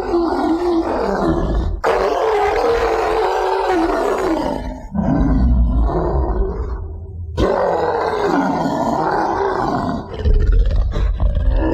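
King Kong roar sound effects from the 1986 King Kong Encounter ride animatronic: about four long, growling roars of two to three seconds each, with short breaks between them, then shorter grunts near the end.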